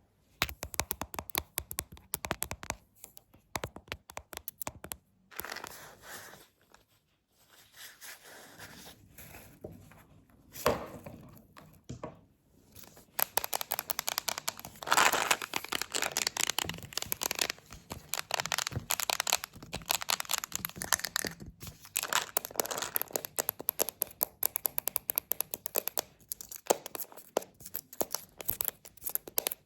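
Close-miked ASMR tapping and knocking: fast runs of sharp taps with fingers or nails, mixed with scratching and crinkling. The tapping thins to softer scratchy sounds for a few seconds near the middle, then comes back dense and quick.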